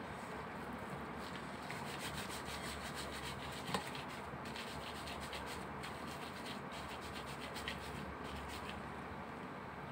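Gloved hands rolling raw minced pork and beef into a meatball: a steady rubbing and squishing of disposable gloves against the meat, with one sharp tap a little over a third of the way in.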